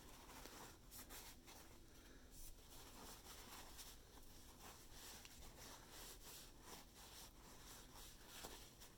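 Faint rubbing in many short, repeated strokes: paper towel wiping old black grease off the metal parts of a circular sock machine's ribber assembly.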